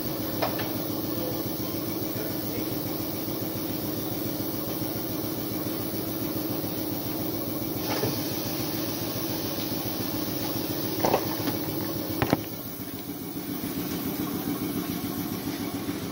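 Steady hum of running workshop machinery, with a few sharp metallic clicks and knocks spaced through it. The loudest pair comes about eleven and twelve seconds in, after which the hum dips briefly.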